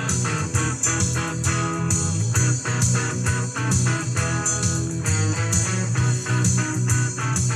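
Cumbia dance music from a sonidero recording: a plucked electric guitar melody over a steady bass line and beat.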